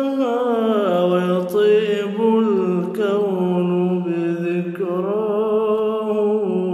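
Male voice singing a devotional Arabic nasheed in long, drawn-out held notes that slide slowly from one pitch to the next, without clear words.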